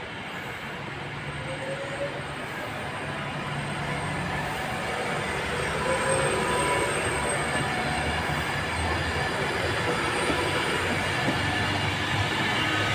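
Avanti West Coast Class 390 Pendolino electric train pulling away and passing close by: a rumble of wheels on rail with a faint whine that rises in pitch as it gathers speed, growing steadily louder throughout.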